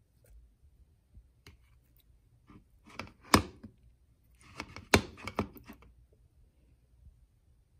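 A kitchen spoon knocking and scraping against the containers while chipotle peppers in adobo are spooned from a plastic tub into a glass blender jar. There are two short clusters of clicks and scrapes, each with one sharp knock: the first about three seconds in, the second about five seconds in.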